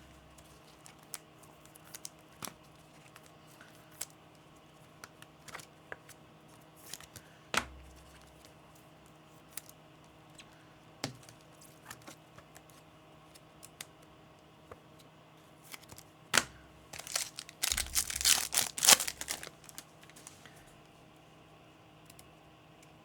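Trading cards being handled, with scattered light clicks and taps, then a foil-wrapped card pack torn open in a crinkly burst lasting about two seconds, a little before the end.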